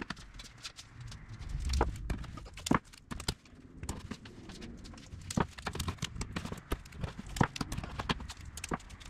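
Hands working blue painter's tape onto primed aluminum spar parts on a wooden bench: irregular light clicks and taps of handling, with a louder rustling swell about two seconds in.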